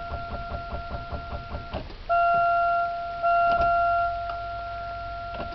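A Buick's starter clicks over fast and evenly, about six or seven ticks a second, on a drained battery that can only crank it very slowly. A steady electronic warning tone sounds over it. The ticking stops a little under two seconds in, and the tone carries on alone.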